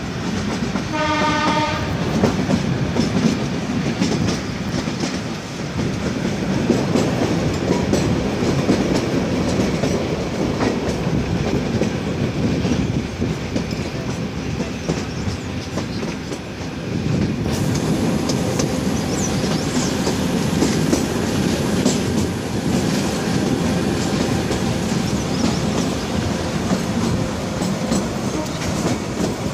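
Kalka–Shimla narrow-gauge toy train running, heard from aboard: a steady rumble and clatter of the wheels on the track, with a short blast of the train's horn about a second in.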